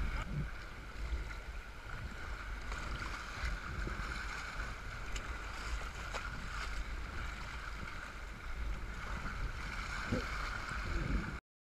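Wind buffeting the camera microphone over water splashing and rushing along a sea kayak's hull as it is paddled through choppy tide-race water. The sound cuts off suddenly near the end.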